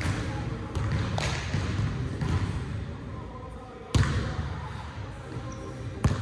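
Basketball bouncing on a hardwood gym floor: a few separate sharp bounces, the loudest about four seconds in and another just before the end, each echoing in the large hall.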